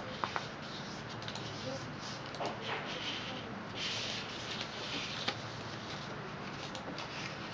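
A sheet of origami paper being folded by hand: the paper rustles and crinkles as it is slid and creased, with a louder rustle about four seconds in. Two sharp taps come near the start and another about five seconds in.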